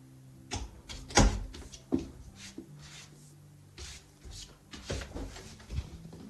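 A series of knocks and bangs, like cupboard doors or objects being knocked about, the loudest just after a second in, over faint background music.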